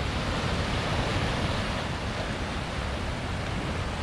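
Ocean surf washing against the rocks at the foot of a sea cliff, a steady rushing noise, with some wind rumbling on the microphone.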